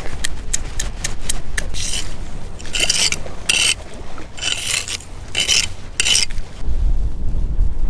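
Sea urchins being crushed into chum with a small hammer and scraped across concrete with a metal chum scoop: quick sharp cracks at first, then about six gritty scrapes. Wind buffets the microphone near the end.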